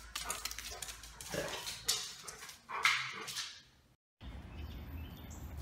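Great Pyrenees vocalizing in a string of short barks and whines. The calls stop about four seconds in and give way to a steady outdoor background hiss.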